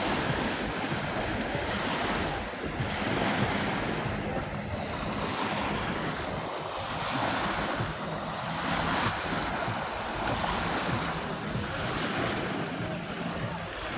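Small waves breaking and washing up the sand, rising and easing every few seconds, with wind buffeting the microphone.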